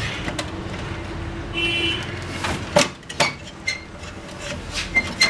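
Plastic side cover of an HP LaserJet M1005 printer being pried up and worked off its catches: scattered clicks and knocks of plastic, two louder ones about three seconds in and a few short snaps near the end.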